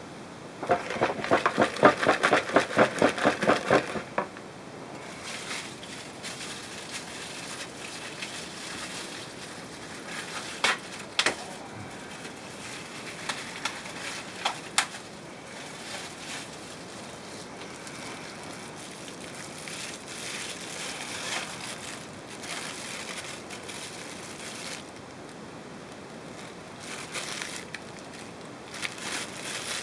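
A whisk beating a wet grated onion mixture in a plastic bowl, a quick run of strokes for about three seconds, then quieter stirring with a few sharp clicks. Near the end a plastic bag crinkles as ground meat is pushed out of it into the bowl.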